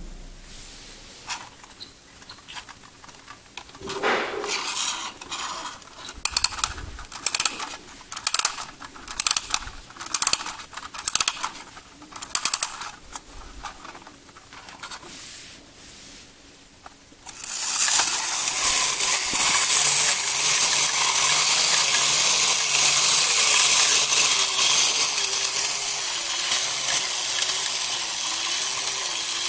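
Vintage 1950s Yoshiya tin wind-up Space Dog robot: a run of sharp metallic clicks, about two a second, as its clockwork is handled and wound, then from just past halfway its spring motor runs with a loud, steady gear whir as the toy walks.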